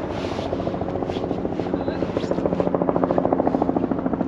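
Helicopter flying nearby, its rotor beating fast and evenly and growing louder after about two seconds.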